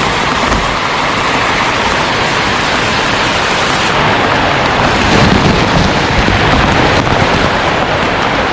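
Heavy rain pouring down as a dense, steady hiss, swelling a little about five seconds in.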